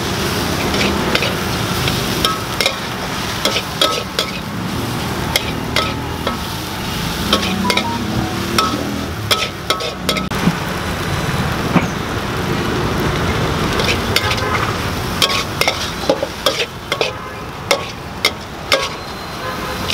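Food stir-frying in a hot pan: a steady sizzle broken by frequent sharp clicks and scrapes of a metal spatula against the pan.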